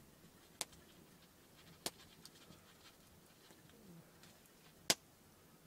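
Faint rustle of instant coffee being tipped from a small pouch into a mug, with three sharp clicks spread over a few seconds.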